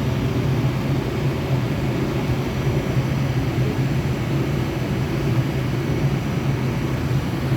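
Stick-welding arc burning on a 7018 electrode, crackling steadily over a low hum.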